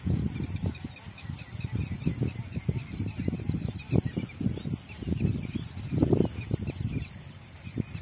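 Marshland ambience: many short, high chirps from birds and insects over irregular low rumbling.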